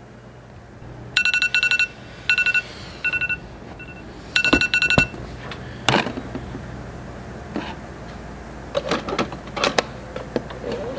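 Electronic wake-up alarm beeping in short bursts of rapid pulses, starting about a second in and stopping about five seconds in. Then a series of sharp clicks and knocks as a ceramic mug is set on a Keurig coffee maker and the machine's lid is handled.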